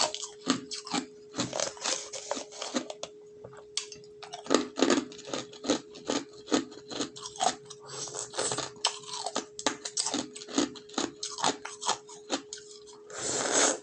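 Ice being bitten and chewed close to the microphone: rapid, irregular sharp crunches, with a longer hissing rush near the end.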